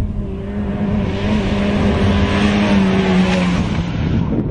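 Pickup truck driving past fast over loose desert sand: its engine runs at a steady pitch that dips slightly as it goes by, with a hiss of tyres throwing sand that swells, is loudest past the middle, and cuts off just before the end. Wind buffets the microphone throughout.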